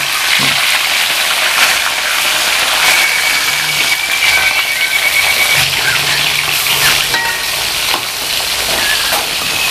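Pieces of mullet deep-frying in hot oil in a wok: a steady sizzle of bubbling oil.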